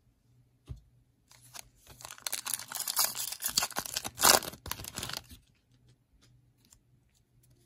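Foil wrapper of a 2021 Panini Prestige football card pack being torn open and crinkled by hand. The crackling starts about a second and a half in, is loudest near four seconds and stops after about five seconds.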